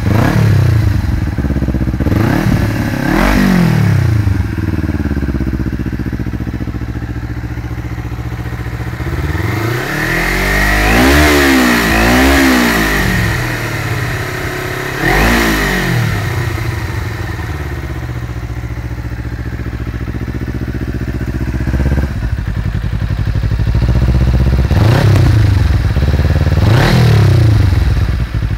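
Kawasaki Ninja parallel-twin engine through a Yoshimura carbon slip-on muffler, idling with the bike standing and revved in short throttle blips every few seconds, each rising and falling in pitch. Near the middle comes a run of several quick blips in a row.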